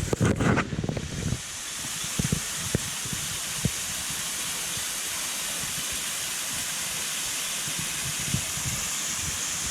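Small waterfall splashing down in a steady, even hiss of falling water, like a shower. Low rumbling and knocks on the microphone in the first second or so.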